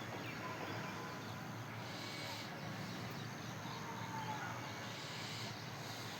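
Steady outdoor background hiss with a few faint, short bird chirps; no loud peacock call.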